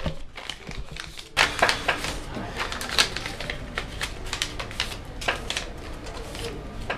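Paper rustling and crackling as a sheet or envelope is handled, in quick irregular crackles that pick up about a second and a half in.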